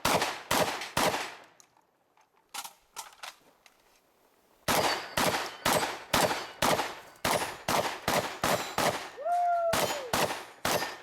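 Shotgun fired in quick succession during a timed stage: three fast shots, a lull of about three seconds with a few faint clicks, then a steady string of about fifteen shots at two to three a second.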